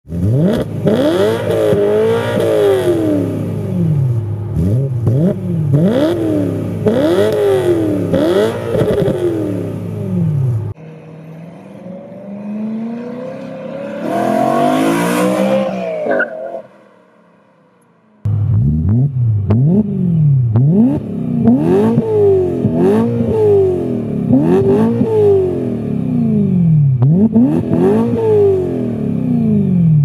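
BMW E9X M3 4.0-litre V8 with an aftermarket axle-back exhaust, blipped through a quick series of revs, each one rising and falling about once a second. Midway, one car pulls away under acceleration with the pitch climbing before it drops off, there is a short gap, and then more quick revs follow.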